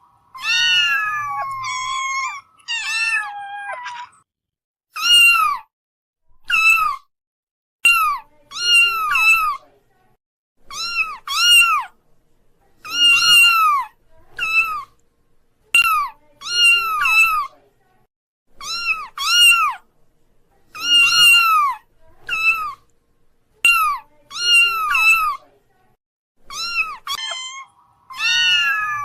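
Kitten mewing over and over: short, high-pitched meows that rise and fall, often two in quick succession, with brief pauses between them.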